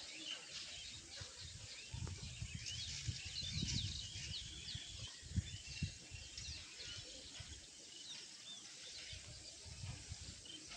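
Many small birds chirping in quick, short calls over a faint outdoor hiss, busiest a couple of seconds in. Low rumbling and a couple of sharp bumps sound on the microphone between about two and six seconds in.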